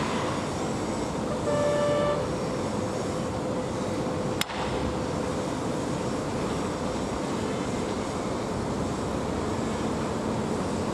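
Steady rushing noise of distant traffic, with a short horn toot about a second and a half in and a single sharp click a little after four seconds.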